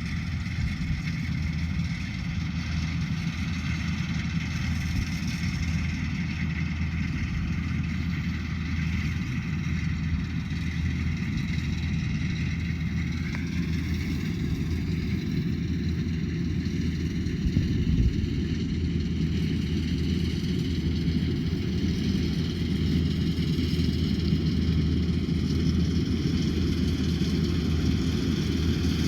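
Rice combine harvester engine running steadily under load, its pitch stepping up slightly about halfway through. There is a single brief thump about two-thirds of the way in.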